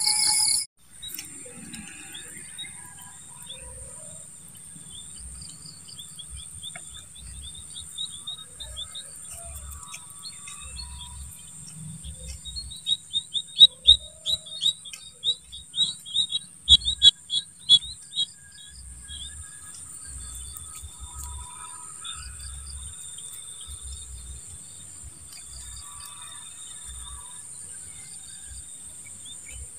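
Outdoor field ambience: a steady high-pitched insect drone, with a quick run of repeated chirps that is loudest about halfway through. Occasional low bumps sound underneath. A brief bit of music cuts off right at the start.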